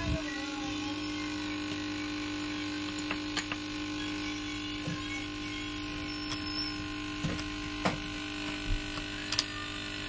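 Steady hum of several held tones, with a few light clicks and taps as a thin metal tool works on a small phone charging-port circuit board.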